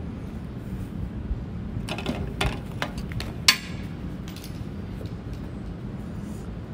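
Steady low outdoor background rumble, with a few sharp clicks and knocks in the middle, the loudest about three and a half seconds in.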